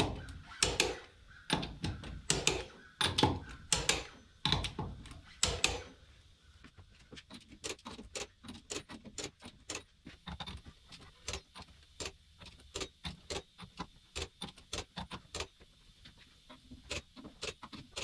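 A half-inch click-type torque wrench ratcheting and clicking as wheel lug nuts are tightened to 95 foot-pounds in a star pattern. For the first few seconds there are sharp, loud clicks about one a second, followed by a quicker run of fainter ticks.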